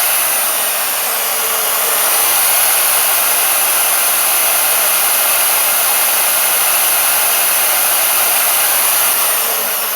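Portable bandsaw running steadily with a high motor whine. Its pitch sinks near the end.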